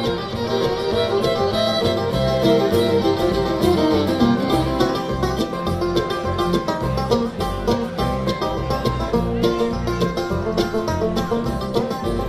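Bluegrass music: an instrumental break with quick banjo picking, fiddle and guitar, without singing.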